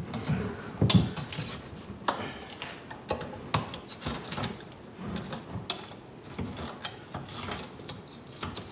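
Knife scraping and cutting at gristle on a boiled longhorn bull skull, with the skull knocking and rubbing in the sink; irregular scrapes and knocks, the loudest about a second in.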